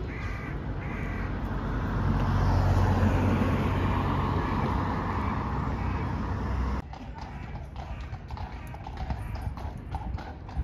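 Street traffic noise that swells and fades as a vehicle goes by. Then, after a sudden cut about two-thirds of the way in, the shod hooves of a walking police horse clip-clop on the pavement.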